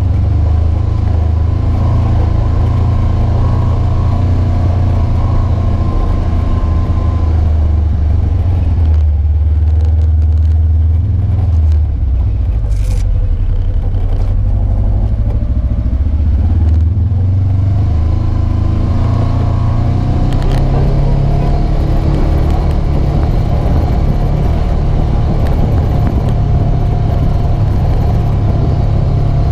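Polaris RZR 900 Trail side-by-side's twin-cylinder engine running as it drives along a rough dirt trail, a steady low drone heard from inside the open cab. Its pitch sinks for a few seconds a third of the way in, then climbs and holds higher for the last third. A single sharp click comes about halfway through.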